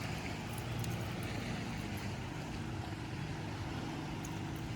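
A motorboat's engine running steadily, a low even drone with hiss over it.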